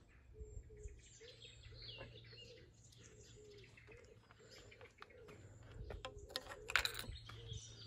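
Birds chirping and calling throughout. About six and a half seconds in comes a short, loud clatter of a coin dropped through the slot of a wall-mounted donation box.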